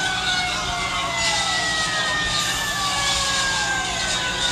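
Fire engine sirens, several sounding at once, each sliding slowly down in pitch and overlapping, over a steady low rumble.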